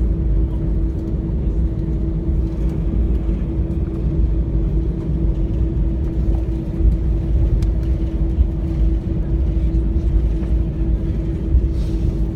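Airliner cabin noise during landing: a steady low rumble with a constant droning hum throughout.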